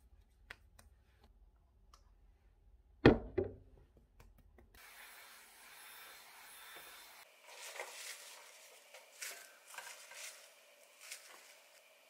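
A few light clicks and one sharp knock about three seconds in as a cream jar is handled on a wooden table. From about five seconds a hot-air brush hair styler blows steadily, with the round brush rustling through the hair in irregular strokes.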